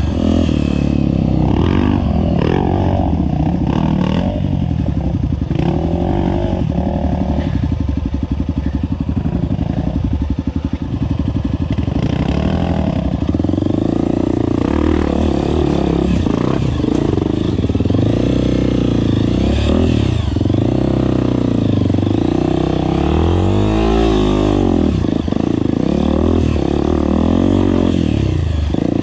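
Honda CRF250F trail bike's single-cylinder four-stroke engine revving up and down, pitch rising and falling as the throttle is worked over rocky ground, with knocks and clatter from the bike going over stones.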